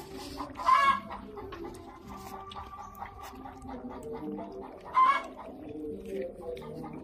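Chickens clucking, with two louder calls about a second in and about five seconds in, over the soft clicking and slurping of puppies lapping milk from a bowl.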